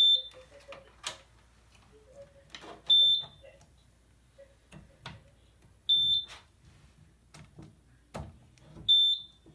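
Fire alarm control panel's trouble sounder giving short, high beeps, one about every three seconds, four in all. It is signalling a battery trouble because no standby batteries are fitted. Light knocks and clicks sound between the beeps.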